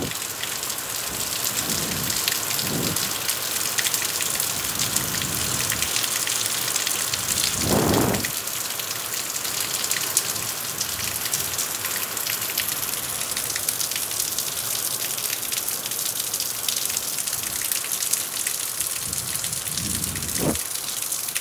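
Heavy rain falling on brick paving and a tractor's metal bonnet, a dense steady hiss full of fine drop ticks. A few short low whooshes sound through it, the loudest about eight seconds in.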